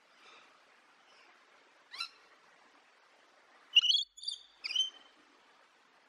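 Cartoon chipmunk-style laugh: a short high-pitched chuckle of three quick bursts near the end, with one brief rising squeak about two seconds in. Faint birds twittering underneath.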